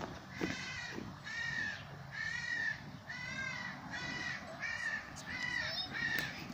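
An animal calling over and over: about eight short, harsh calls, each about half a second long and evenly spaced under a second apart.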